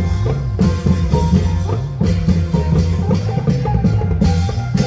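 Isan klong yao long-drum band playing dance music: heavy drum beats in a steady, driving rhythm with a melody line over them.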